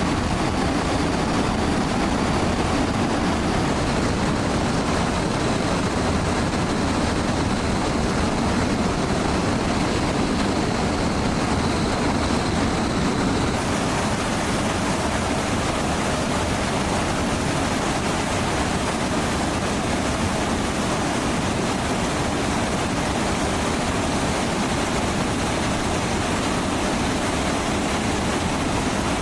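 Steady rushing noise of a jet aircraft in flight, with a faint high whine in the first half.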